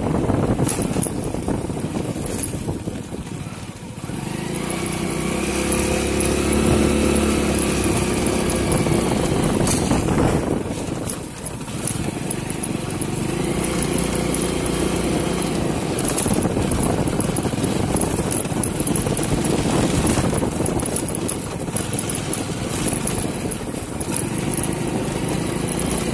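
Motorcycle engine running while riding over a rough dirt road, with wind rushing over the microphone. The engine note swells and eases off twice.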